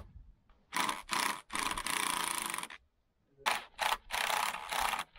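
Power drill driving screws into timber in about six short bursts, the longest about a second and a half, each starting and stopping abruptly.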